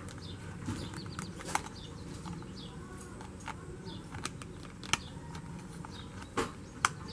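Scattered light clicks and knocks of the plastic parts of a Volkswagen CC shifter assembly being handled and worked by hand, with a few sharper knocks about a second and a half in, about five seconds in and twice near the end, over a steady low hum.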